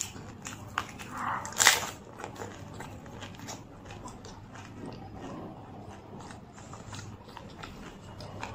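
Close-up eating sounds of a water-filled pani puri: one loud, crisp crunch as the fried shell is bitten about two seconds in, then many small wet, crackling chews with the mouth closed.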